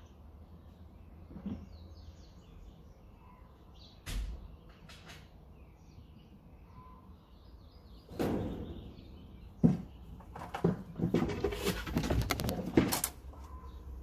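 Small birds chirping faintly in the background, with a couple of knocks about four seconds in. From about eight seconds there is a loud clatter of rapid knocks and rattles lasting some five seconds.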